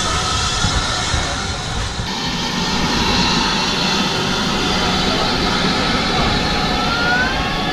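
Spitfire's piston engine droning steadily during a flyby.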